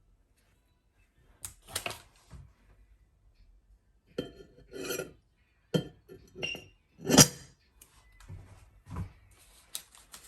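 Crockery, glass and cutlery clinking and knocking in a string of separate strikes, the loudest about seven seconds in.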